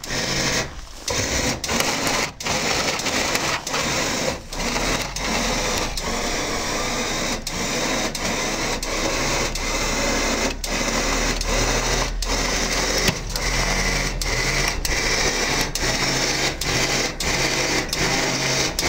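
Winch motor running steadily, hauling a snowmobile up a ramp into a pickup bed, with a regular pulse a little under twice a second.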